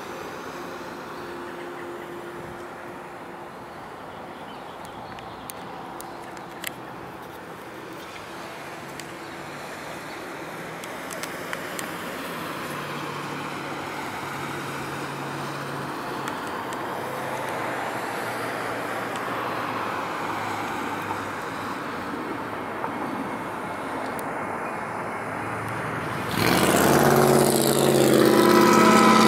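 Road traffic noise with the diesel engine of an approaching freight locomotive, slowly getting louder. About 26 seconds in the sound suddenly becomes much louder, with a heavy engine carrying several steady tones.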